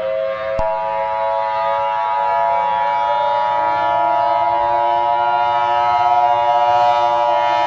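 Civil defense warning siren sounding a loud, steady wail of several held tones that drift slowly in pitch, with a higher tone joining about half a second in.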